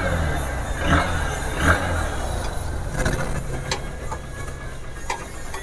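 Honda CB Unicorn 160's freshly rebuilt single-cylinder engine kick-started and catching on the first kick, with a few knocks in the first two seconds, then settling into a steady idle.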